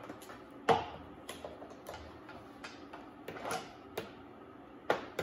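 Irregular plastic clicks and knocks from handling a hand-pump oil extractor's canister, pump head and hose, about six in all, the loudest about 0.7 s in.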